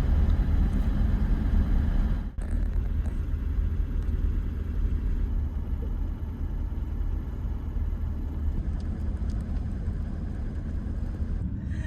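Toyota LandCruiser Troopcarrier (Troopy) 4WD driving slowly along firm beach sand: a steady low engine and road rumble, with a brief break about two seconds in.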